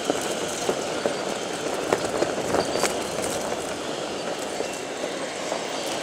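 Gusty wind rushing over the microphone in a snowstorm, with scattered irregular clicks and crunches of footsteps in ice cleats on snowy pavement.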